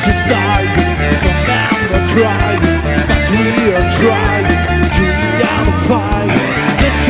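Rock band playing loudly: electric guitar, bass and drums, with the guitar line bending in pitch over a steady bass and regular drum hits.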